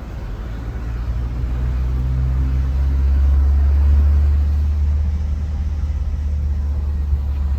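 A car driving, a steady low rumble of engine and road noise that grows somewhat louder toward the middle.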